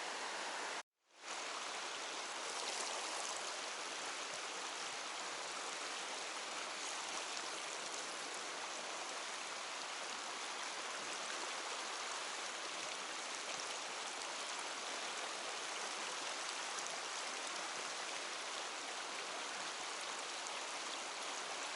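Mountain stream water rushing steadily over rocks. The sound drops out for a split second about a second in, then carries on unchanged.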